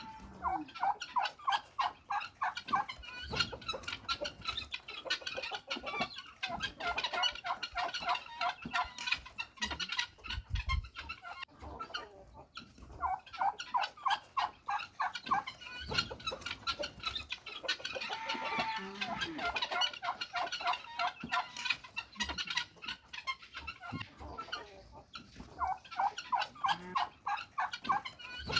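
Farmyard poultry calling: bursts of rapid clucking that recur every few seconds.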